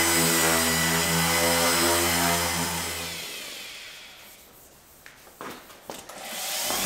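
Dual-action (random orbital) sander running on 600-grit paper against a primed fender plug, switched off about three seconds in and spinning down. A few light knocks follow, then the sander starts up again near the end.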